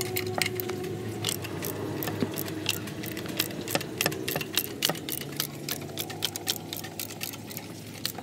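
Socket ratchet clicking in quick, uneven runs as a bolt is turned, metal clicks over a steady low hum.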